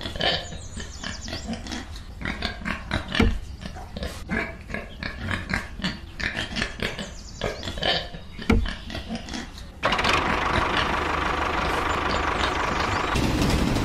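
Pigs grunting and oinking, a quick string of short grunts. About ten seconds in, this cuts to a steady mechanical running sound, which turns heavier and deeper shortly before the end.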